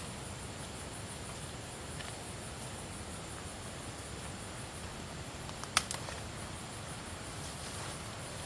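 Insects chirping in a high, steady, pulsing band over a constant background hiss, with a sharp double click or knock about six seconds in.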